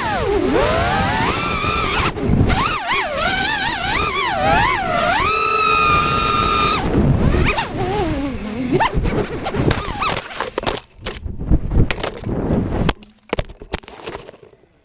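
Racing quadcopter's EMAX RS2205 2600KV brushless motors and triblade props whining, the pitch sliding up and down with the throttle. About halfway through the whine breaks off into irregular knocks and crackles that fade out near the end.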